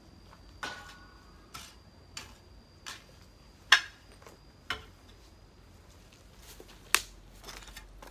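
Garden hoe chopping into weedy ground, a series of sharp, irregular knocks about a second apart, two of them much louder than the rest.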